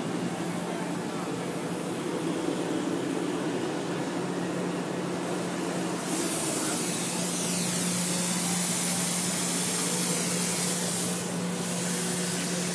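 KT20-120 hydrogen torch generator humming steadily. About six seconds in, a loud, even hiss from the hydrogen torch joins it, breaking off briefly near the end before resuming.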